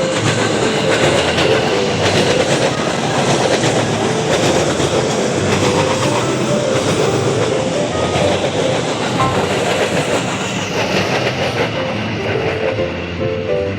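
A train passing close by: the steady rush and clatter of railway cars' wheels on the rails, the hiss easing a little after about ten seconds.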